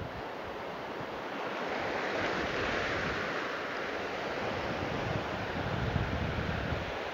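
Surf washing in over a flat rocky reef and foaming across it, the rush of water building about two seconds in. The tide is near high, so the waves flood across the rocks.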